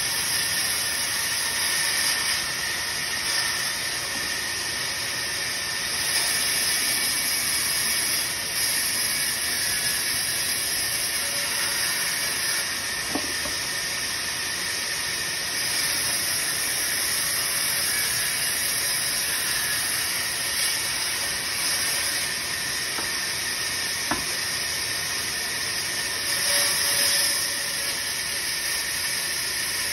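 Vertical band saw running and cutting through a wooden cricket bat blank: a steady hissing noise that swells a little at times, with a few faint clicks.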